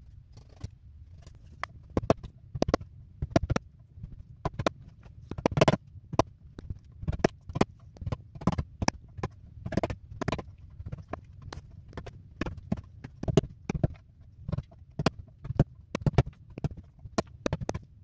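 Wooden mallet striking a wood chisel, driving it into a log of old, rotten deadwood: irregular sharp knocks, about two a second.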